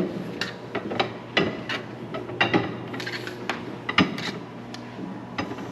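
Irregular clattering clicks and knocks of hard objects being handled, over a steady low hum.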